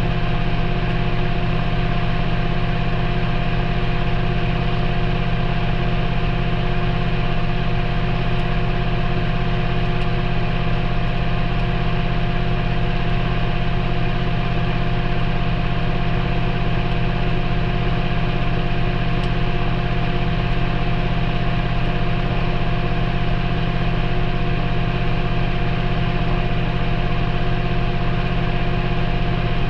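Maytag front-loading washing machine running, heard from inside the drum. It makes a loud, steady hum with a constant whine and does not change over the whole stretch.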